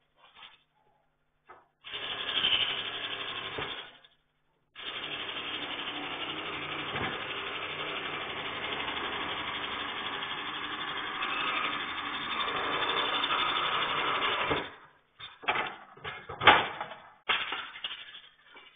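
Power tool cutting through a car's exhaust pipe to take off the catalytic converter: a short burst of cutting, a pause, then about ten seconds of steady cutting, followed by several sharp metal knocks and clatter.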